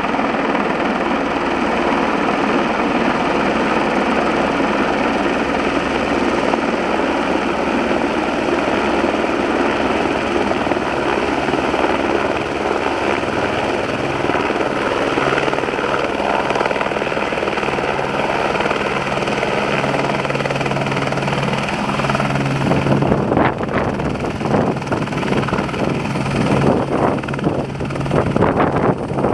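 Airbus AS350-type single-engine helicopter coming in to land, its rotor and turbine running with a steady, loud noise. Over the last several seconds, as it settles on the ground close by, rotor downwash buffets the microphone in irregular gusts.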